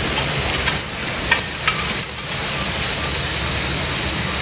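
Rushing water around a river-rapids raft ride, a steady noisy wash, with a few brief high squeaks in the first two seconds.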